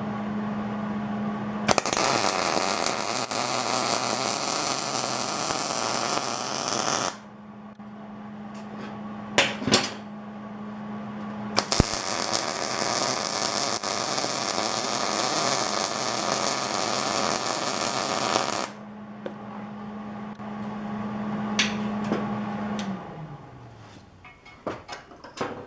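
MIG welder arc crackling as two beads are laid on 8620 steel blocks, in two runs of about five and seven seconds. Between and after the welds a steady low hum carries on, then winds down in pitch near the end.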